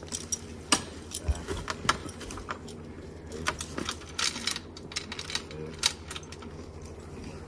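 Irregular metallic clinks and jingles, several sharp ones a second, over a steady low hum.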